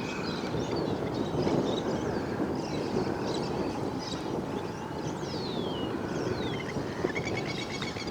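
Wind buffeting the microphone in a steady rush, with birds chirping and whistling in the background and a short fast trill near the end.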